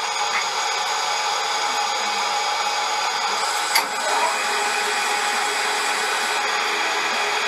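Manual engine lathe running steadily, a whine of several constant tones over a mechanical hiss, with one sharp click about four seconds in.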